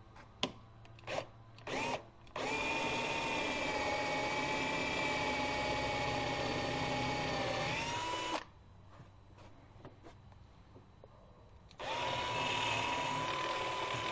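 Power drill boring a 1/2-inch hole through a wooden door jamb, with a few short trigger blips, then one long steady run of about six seconds whose pitch rises slightly as it stops, and a second shorter run near the end.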